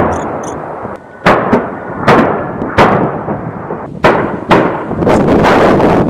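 A-10 Warthog weapons fire on a live-fire range: a loud roar dies away over the first second, then about seven sharp bangs come at uneven intervals, each trailing off in a rumbling echo.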